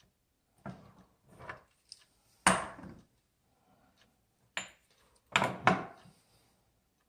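Sharp knocks and clatters of a faucet handle and hand tools being handled at a sink, with a few quiet gaps between. The loudest knock comes about two and a half seconds in, and two knocks in quick succession come near the end.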